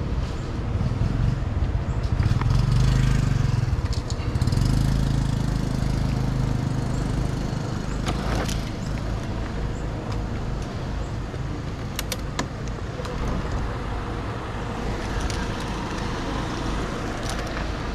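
A motor vehicle engine running over a steady rush of road noise. The engine is loudest in the first few seconds, and a few sharp clicks come through later.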